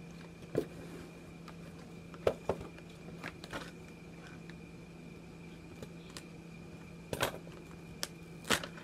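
Scissors snipping across the top of a stand-up pouch, then the pouch crinkling as it is pulled open by hand: a few separate short snips and rustles with gaps between them.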